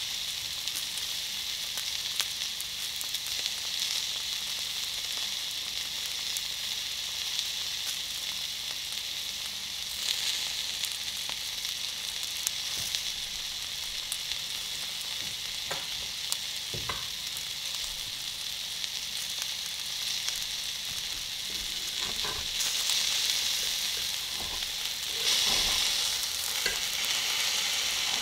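Food frying in hot oil: a steady sizzle with scattered small pops and a few louder crackles, growing somewhat louder near the end.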